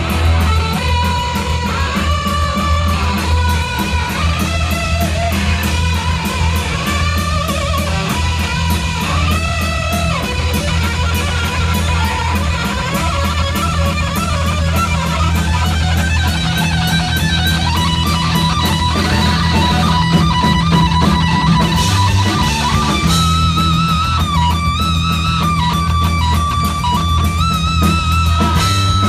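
Heavy metal band playing live, led by a distorted electric guitar playing a solo line of bent, singing notes over a steady low bass drone; from about two thirds of the way in, the guitar holds long notes with vibrato.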